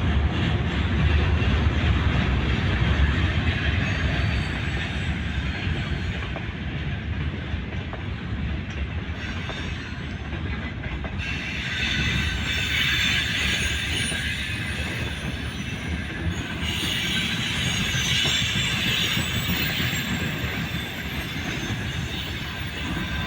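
Freight train's wagons rolling past: a continuous rumble of steel wheels on the rails. From about halfway through, the wheel noise turns harsher and higher for several seconds, with squealing wheels.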